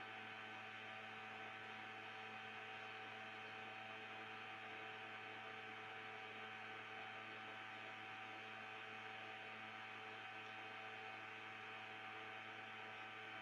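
Steady low electrical hum made of several constant tones, over faint hiss.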